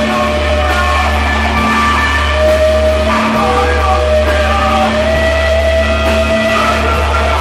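Psychedelic rock instrumental: a steady low bass drone under long held notes that shift slowly in pitch.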